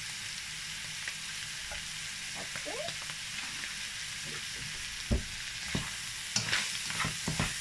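Minced beef and mixed vegetables sizzling in a frying pan while a spatula stirs and scrapes through them. From about five seconds in come several sharp knocks and scrapes of the spatula against the pan.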